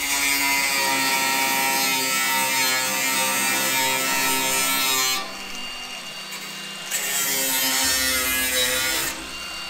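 Angle grinder cutting and grinding rusty car body steel, running in two stretches: about five seconds, a short pause, then about two seconds more, over background music.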